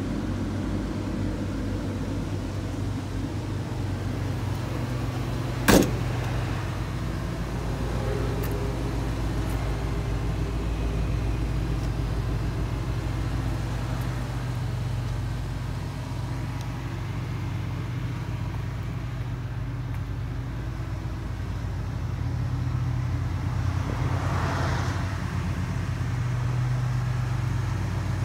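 Chevrolet Kodiak C4500 medium-duty truck engine idling steadily, heard with a single sharp knock about six seconds in.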